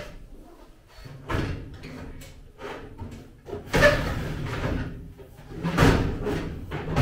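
Two-drawer cabinet being shoved and wedged into the angle-iron frame under a steel welding table: a series of knocks and scraping clunks, the loudest about four seconds in and another near six seconds.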